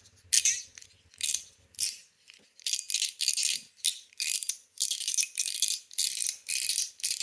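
CHENYU SYNTONY fidget toy being played with: a series of short, sharp rattly clacks, scattered at first, then coming steadily about twice a second.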